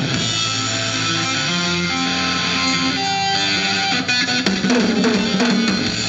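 Live rock band playing an instrumental passage: electric guitar holding long sustained notes over bass guitar and drums.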